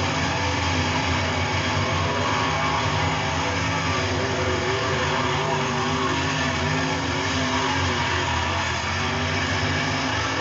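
A field of dirt Super Late Model race cars running hard around the track. Their V8 engines blend into one loud, steady drone, with pitches wavering up and down as the cars lift and get back on the throttle.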